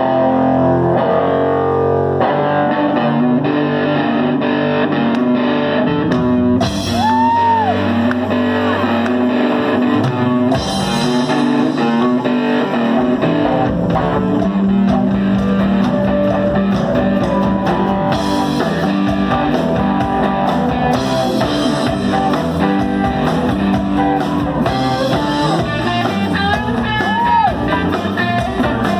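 A live rock band with electric guitars and drums kicks into a song and plays on steadily.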